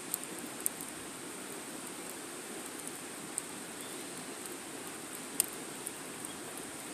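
Wood fire crackling: a steady soft hiss broken by a few sharp pops, the loudest about five and a half seconds in.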